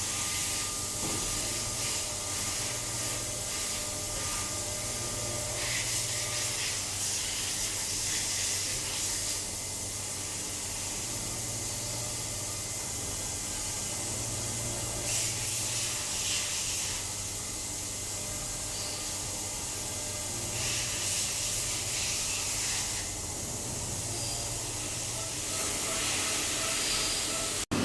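CNC machine shop noise: a steady hiss over a low machine hum with faint steady tones. The hiss changes in brightness every few seconds and cuts out briefly near the end.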